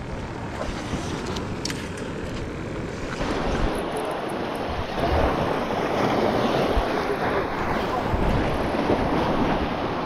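Wind rushing over the microphone and waves washing against the jetty rocks, a steady noise that grows louder about four seconds in, with a few light clicks near the start.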